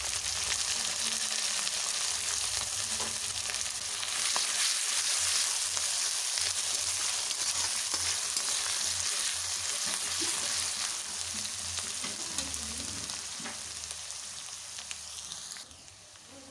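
Chopped onions sizzling in hot oil in a kadai, stirred with a metal spatula that scrapes the pan now and then. The sizzle drops off sharply near the end.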